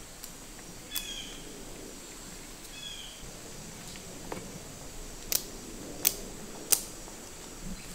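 Sharp clicks of metal climbing sticks and a tree stand knocking as a hunter climbs a tree: one about a second in, then three about 0.7 s apart in the second half. Two short high chirps sound in between over a quiet woodland background.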